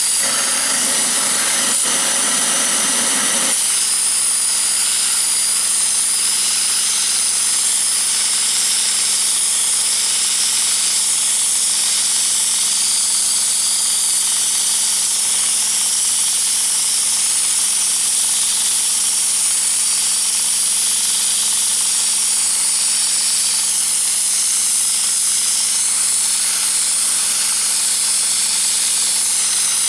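3/8 inch wet sandblaster on a 9-horsepower pressure washer blasting sand-laden water at high pressure against a rusty cast-iron brake drum: a loud, steady hiss of spray, with a steady engine hum beneath it. About three and a half seconds in, the lower part of the spray noise drops away while the hiss and hum go on.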